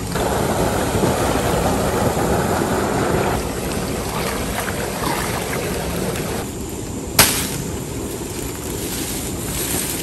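Shallow ditch water running and sloshing as a fishing net is laid into it, louder for the first three seconds or so. A single sharp click about seven seconds in.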